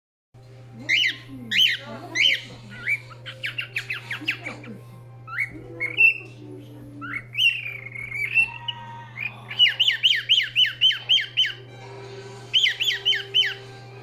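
Young cockatiel chirping and whistling in short sweeping notes: the early, unformed whistling of a bird still learning. Just past halfway there is one longer wavering whistle, then fast runs of falling chirps. A steady low hum sits underneath.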